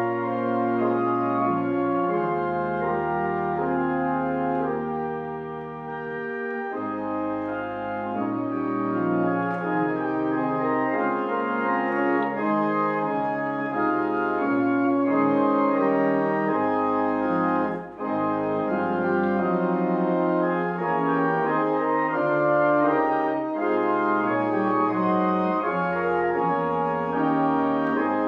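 Church organ playing a slow piece of held chords that change every second or so, with a brief drop in sound about 18 seconds in.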